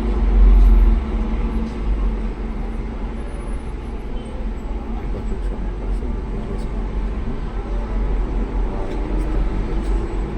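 Steady road traffic noise with a deep rumble, loudest in the first second.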